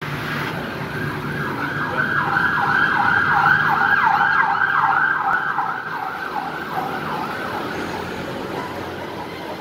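Emergency vehicle siren in a fast yelp, about three sweeps a second, growing louder to a peak midway and then fading away.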